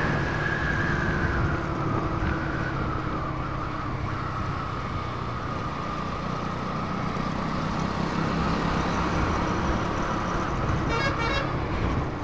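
Motorcycle engine running steadily on the move, with rushing air noise. A vehicle horn toots briefly, rapidly pulsed, about eleven seconds in.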